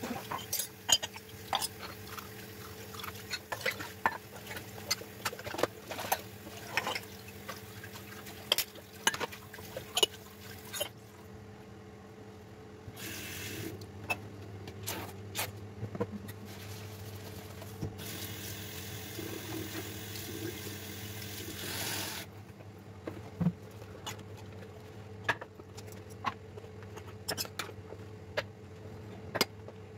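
Washing up at a kitchen sink: glasses and cups clink sharply and repeatedly against each other and the counter. The tap runs in short spells in the middle, and the clinking picks up again near the end.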